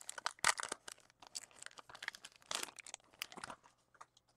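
Crinkling and crackling of a trading-card pack wrapper and cards being handled close to the microphone, in short irregular bursts that thin out near the end.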